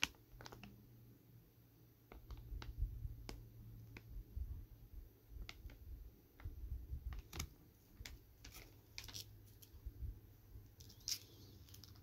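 Faint, scattered crinkles and clicks of a plastic snack bag being handled and turned over, with a few short crackly bursts and some low bumps.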